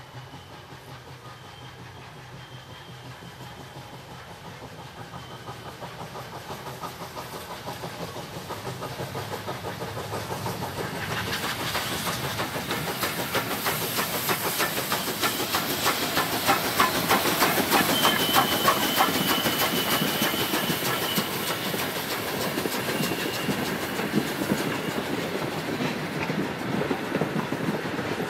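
DSB class F steam tank locomotive working a train past: rhythmic exhaust beats and wheels clattering over the rail joints, growing louder as it nears and peaking about two-thirds through. A thin high squeal comes and goes. Near the end the coaches roll by with a steady clickety-clack.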